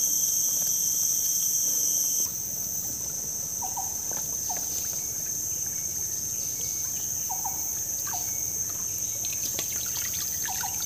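Steady high-pitched drone of insects in swampy forest, which drops and changes about two seconds in. Short chirps recur every few seconds over faint water trickling and splashing from wading and handling a fish trap.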